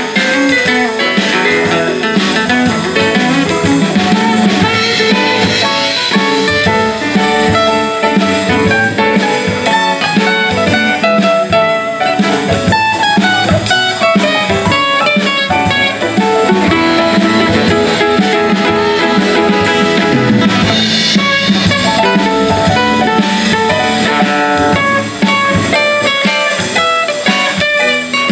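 Live blues band playing an instrumental passage: acoustic guitar strumming over a drum kit, with a saxophone.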